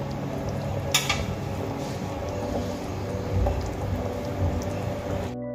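Thin fish curry broth boiling vigorously in a metal kadai, a steady bubbling and simmering, with one brief click about a second in.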